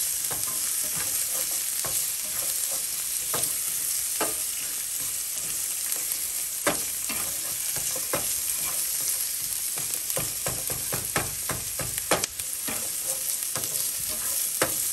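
Chopped onion and garlic sizzling in a copper-coloured nonstick frying pan, with a steady hiss. A slotted spatula stirs them, scraping and tapping against the pan, more often in the second half.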